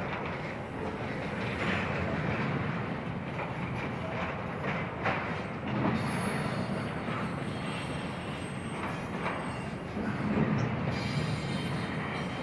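Intermodal freight train's container cars rolling past, a steady rumble of steel wheels on rail with clicks over rail joints and a faint thin wheel squeal.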